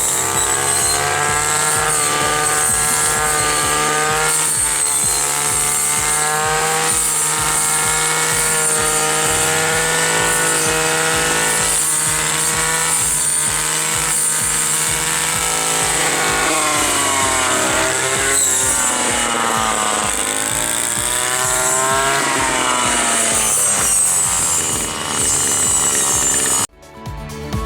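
Small two-stroke engine of a brush cutter running steadily, its pitch wavering and sagging as it cuts grass, then picking up again.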